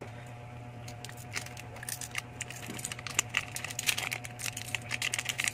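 Hands handling a disassembled smartphone: scattered small clicks, taps and crinkles, getting busier after about a second, over a low steady hum.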